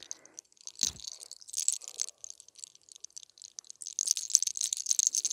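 A lock of hair being rolled tight between the fingers and pulled in hair cracking ('sacar los soles'), giving fine crackling and rustling that comes in clusters, densest from about four seconds in. The crackle is the 'burst' that the technique aims for. There is a soft thump just under a second in.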